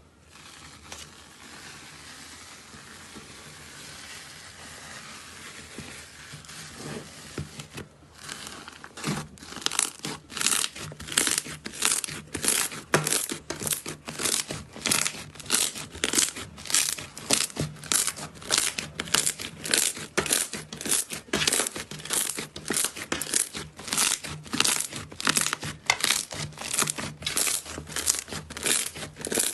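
Slime being squeezed and kneaded by hand: a soft, even crackle for about the first eight seconds, then steady rhythmic crackling squishes, roughly one and a half a second.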